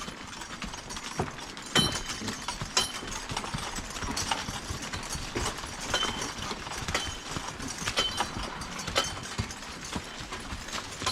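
Mule team's hooves clopping as they pull a loaded log wagon, with a running clatter of the wagon and sharp metallic clinks about once a second.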